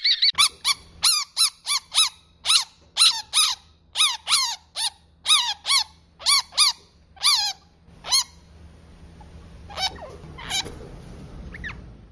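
A rapid series of short, high-pitched squeaky animal calls, about two a second, thinning after about eight seconds to a few scattered calls. A faint low hum runs underneath.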